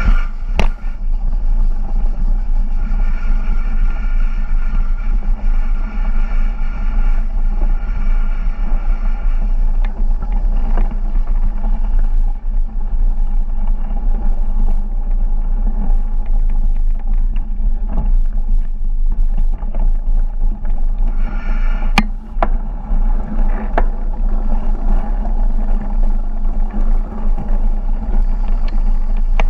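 Loud, steady low rumble of wind and handling noise on an action camera carried while walking, with a few sharp clicks. Faint held tones sit above it for the first ten seconds and again briefly around twenty-two seconds in.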